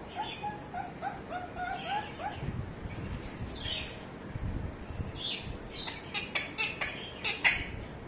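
Alexandrine parakeet calling: a quick run of short, repeated chattering notes for about two seconds, then scattered harsh calls, and a cluster of sharp, short sounds toward the end, the loudest just before the end.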